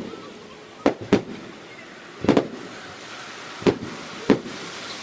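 Aerial firework shells bursting overhead: a series of sharp booms, some in quick pairs, each followed by a short echo.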